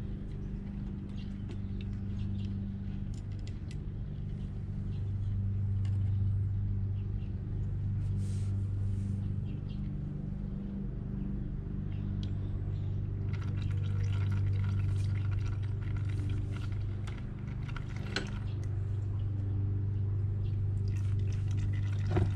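Engine oil trickling in a thin stream from a motorcycle's drain-plug hole into a plastic drain pan, under a steady low hum. There are a few faint ticks, and a light knock near the end.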